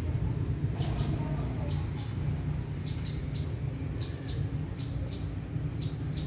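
A small bird chirping in short high notes, mostly in quick pairs, about once a second, over a steady low hum.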